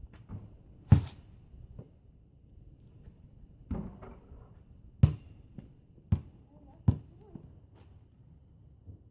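A handful of irregular, sharp knocks and thumps, the loudest about a second in and another near the middle, with quieter handling noise between them.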